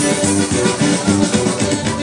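Upbeat Latin dance music with a steady beat.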